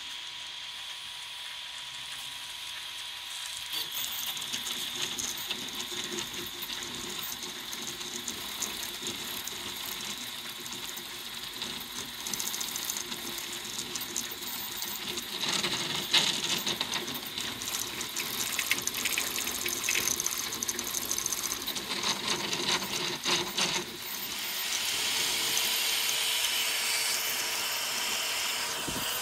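CoreXY 3D printer (Ender 5 Pro converted to a ZeroG Mercury 1.1) printing at high speed: the stepper motors buzz and chatter through rapid back-and-forth moves over a steady cooling-fan whine. It gets louder and busier about four seconds in, and again near the end, where a steady hum joins.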